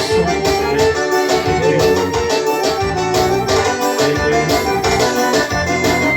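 Music with held, organ-like keyboard chords over a steady beat.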